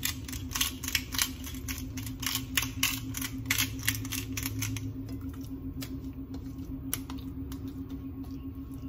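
Hand salt grinder being twisted, its mechanism clicking rapidly at about three or four clicks a second, thinning to occasional clicks after about five seconds. A steady low hum runs underneath.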